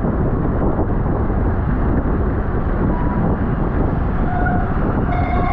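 Wind rushing and buffeting hard over the microphone of a camera carried at racing speed. A steady pitched tone of several notes comes in near the end.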